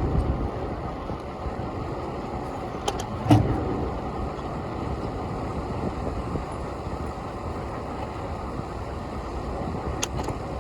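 Steady rumble of city street traffic heard while riding a bicycle, with a sharp knock about three seconds in and a fainter click near the end.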